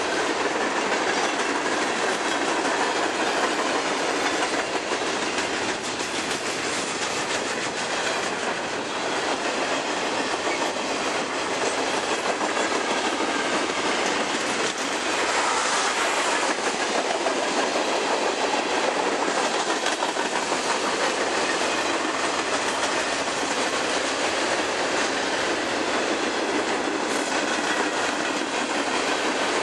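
Freight train cars rolling past, steel wheels running steadily on the rails.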